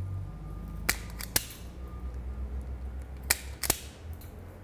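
Hand wire strippers snapping shut on wire insulation: four sharp clicks in two pairs, about two seconds apart.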